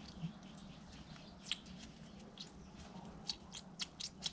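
Faint, short high squeaks and clicks from a pressure washer pump part being worked by hand after oiling, coming more often toward the end.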